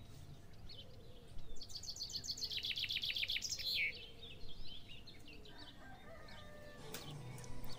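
Songbirds chirping in the background, with a rapid high trill of about ten notes a second that ends in a falling note, among scattered short chirps.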